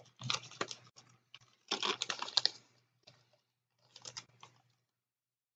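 Plastic model kit parts and their bags being handled and packed into the kit box: crinkling and clicking in three short bouts.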